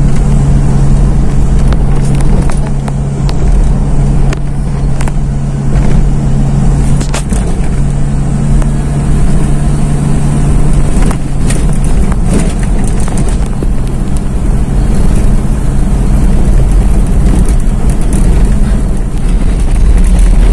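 Steady engine drone and road noise of a car driving, heard from inside its cabin. A few short clicks and bumps come through.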